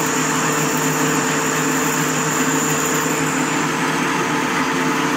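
Metal-turning lathe running steadily with a steel workpiece spinning in its chuck: an even mechanical hum and whine from the headstock drive.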